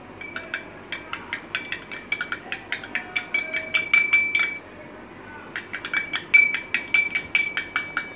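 Metal spoon clinking rapidly against a small glass bowl while stirring a slime mixture, several ringing clinks a second. It comes in two runs, broken by a pause of about a second near the middle.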